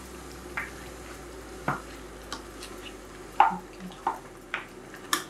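Spoon stirring a thick meat stew in an enamelled cast-iron pot: about seven short knocks and scrapes of the spoon against the pot, the loudest about three and a half seconds in, over a faint steady hiss.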